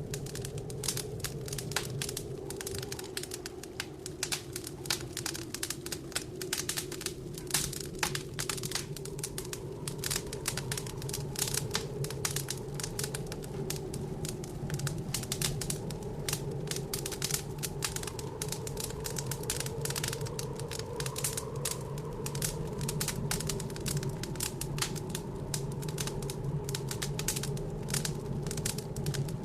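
Wood fire crackling in a fireplace, with dense, irregular pops and snaps throughout. Under it runs a steady low howl of blizzard wind that wavers slightly in pitch.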